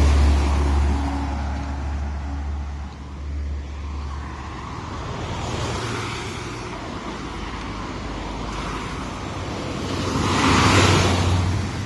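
Road traffic: motor vehicles passing on a busy road, with a low rumbling pass at the start and another vehicle swelling up and fading about eleven seconds in.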